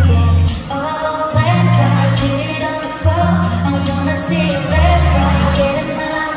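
A live pop song over the arena sound system: a woman sings a melodic line into a handheld microphone over a backing track with long, heavy bass notes and a steady beat.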